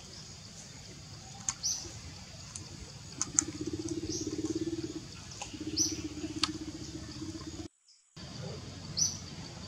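Forest ambience: short high chirps every second or two and a few sharp clicks, with a low buzzing hum that starts about three seconds in, pauses briefly, and runs for about four seconds. The sound cuts out completely for a moment near the end.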